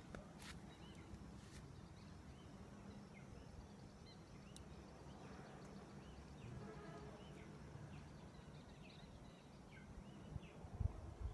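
Quiet rural outdoor ambience: a low steady rumble of wind on the microphone, with scattered faint bird chirps and a few soft handling thumps near the end.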